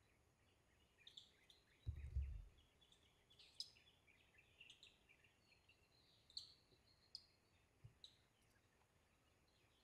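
Faint, scattered short high chirps of forest birds, with one brief low bump about two seconds in.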